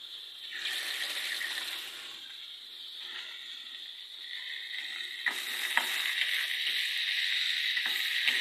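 Sliced tomatoes, onion and garlic sautéing in oil in an aluminium frying pan: a steady sizzle that grows louder about halfway through, with a few sharp knocks against the pan.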